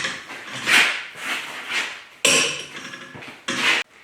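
Metal tools clanking and knocking: a few separate scrapes and knocks, then two sharper metal clanks with some ringing after about two seconds in, as a large torque wrench is handled on a welded bolt's nut.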